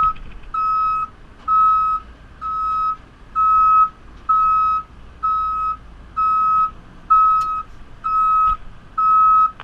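JCB 3CX backhoe loader's reversing alarm beeping steadily, about once a second, as the machine travels backwards, with the low sound of its engine running underneath.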